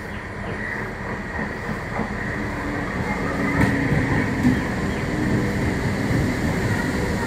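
Electric multiple unit local train running past, a steady rumble of wheels on rails that builds to its loudest about halfway through, with a few sharp clicks from the wheels.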